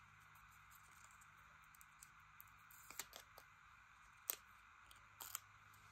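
Near silence: room tone with a few faint ticks and a short rustle from paper cutouts being handled on a craft table, about three seconds in, after four seconds and again a little after five.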